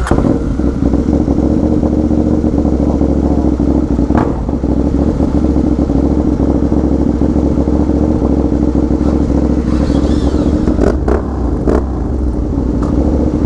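Motorcycle engine starting and then idling steadily and loudly, a few light clicks near the end.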